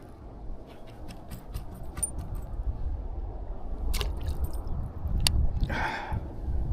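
A low rumble with scattered sharp clicks and scrapes, and a short rushing hiss about six seconds in.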